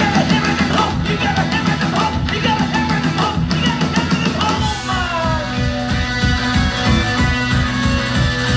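Live punk rock band playing loud: electric guitars, bass and drum kit, with a male singer shouting into the microphone. The vocal drops out about halfway and the instruments carry on.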